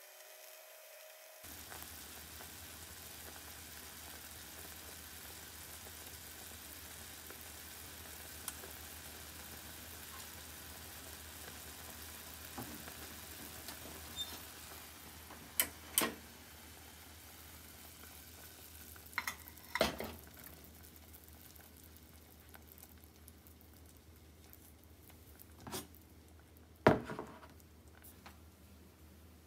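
Ramen soup simmering in a saucepan on a gas hob, a steady bubbling hiss. A few sharp knocks and clicks from the pan sound over it, the loudest near the end.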